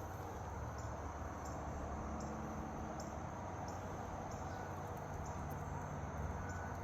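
A high, short insect chirp repeating about every 0.7 s over steady outdoor background noise with a faint low hum.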